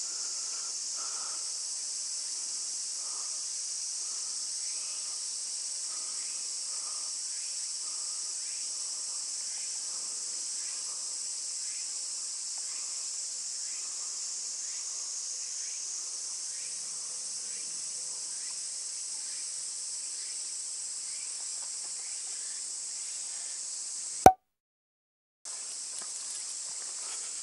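Steady high-pitched drone of summer cicadas. Near the end a sharp click is followed by about a second of dead silence where the recording cuts.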